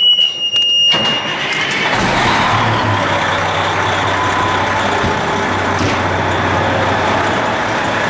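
A steady high-pitched station alert tone ends about a second in. It gives way to the loud, steady running of a fire engine's diesel engine in the apparatus bay.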